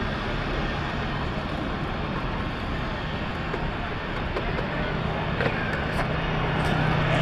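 Roadside traffic with motorbikes and cars passing, over a steady hiss of chicken sempol skewers frying in a pot of hot oil. A low engine hum grows in the last couple of seconds, with a few light clicks as the skewers are lifted out.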